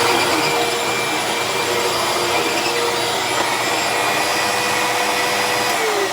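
Hoover Tempo Bagless upright vacuum cleaner running with a loud, steady motor whine, then switched off right at the end, its motor pitch starting to fall as it spins down.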